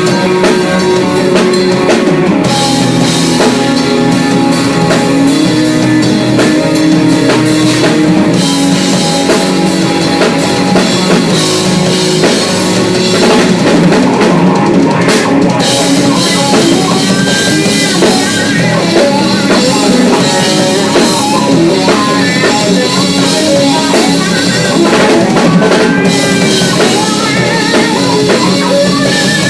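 Loud rock music played on drum kit and guitar, running steadily without a break.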